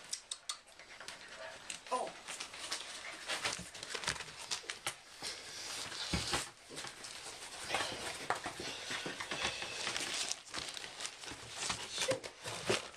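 Five-week-old English Bull Terrier puppies scrambling about on a person's lap and the carpet: a steady run of soft scuffs, clicks and rustles from their paws and bodies.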